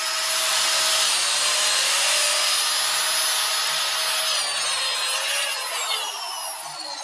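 Mafell KSS 300 portable circular saw (900-watt motor) running and cutting grooves into softwood timber along its guide track, the blade set to a shallow locked depth. The motor whine dips under load a few times, then falls in pitch and eases off near the end.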